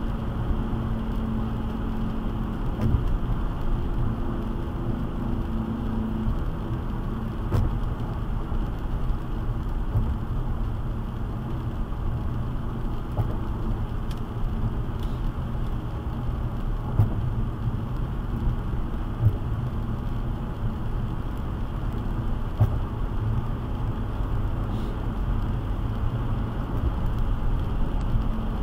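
Road noise of a car driving on a wet highway, heard from inside: a steady low rumble of tyres and engine, with a few sharp ticks scattered through.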